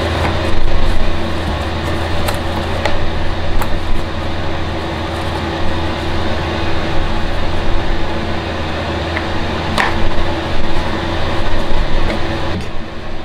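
Steady machine noise from a motor or fan, with a constant low hum, and a few sharp clicks and taps as the plastic parts of a chainsaw are handled and taken apart.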